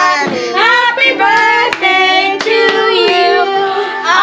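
Children singing a birthday song together, with a few sharp hand claps.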